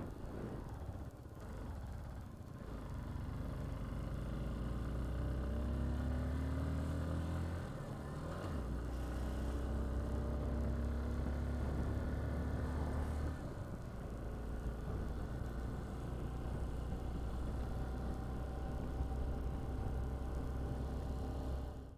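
Motorcycle engine running while riding, its pitch climbing in several rises as the bike accelerates through the gears in the middle of the stretch, over a steady low rumble.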